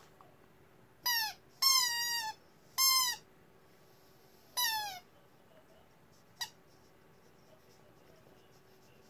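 A squeaky chicken toy squeezed four times, each a short squeal that slides in pitch, the second one longer than the rest. A single sharp click follows a little later.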